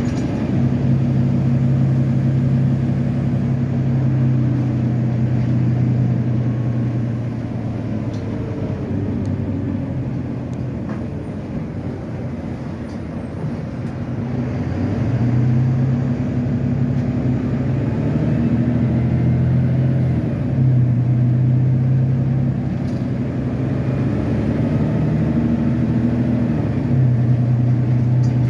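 Volvo B9TL double-decker bus's diesel engine running under way. Its note fades about a third of the way through, then picks up again and rises and drops in several steps as the bus pulls away through its gears.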